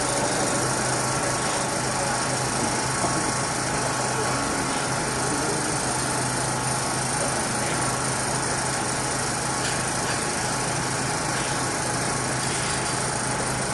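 Steady hiss with an even low hum, the background noise of an amplified sound system between phrases of recitation.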